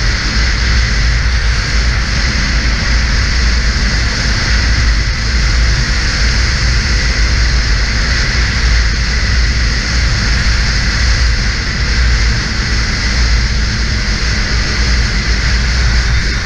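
Snowmobile running at a steady cruising speed, its engine and track noise holding level and mixed with rushing wind.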